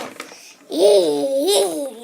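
A child's wordless sing-song vocal sound, about a second long, its pitch swooping down and up and down again.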